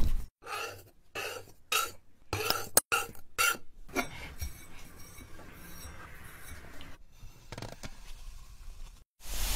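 Crumbly china clay being pressed and crushed: a quick run of short crunches in the first four seconds, then a faint crumbling rustle.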